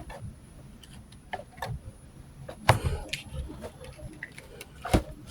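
Irregular small clicks and taps of a plastic action figure and its parts being handled, with a sharper knock about two and a half seconds in and another near the end.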